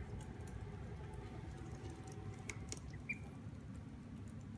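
Ducklings following a dog on a tile floor: one short, faint duckling peep about three seconds in, just after a couple of light clicks.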